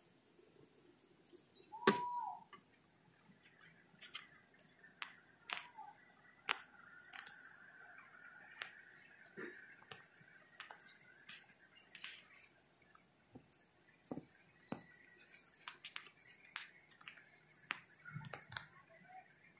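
Passenger-train wheels clicking and knocking irregularly over rail joints and the points of a turnout at low speed, heard from inside the coach. A sharper knock comes about two seconds in.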